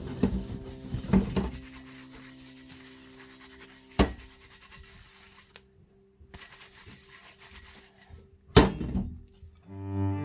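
Paper towel rubbing over a perforated metal pizza pan, wiping off grime, with two sharp knocks about four seconds in and near the end. Background music plays throughout.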